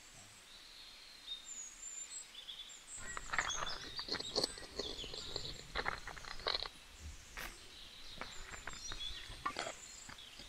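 Small birds chirping, with a run of short clicks and knocks starting about three seconds in.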